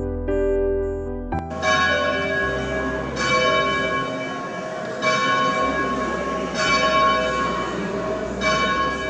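A church bell rung by a hand-pulled rope tolls about five times, one stroke every second and a half or so, each ringing on into the next. Soft piano music is heard in the first second or so before the bell starts.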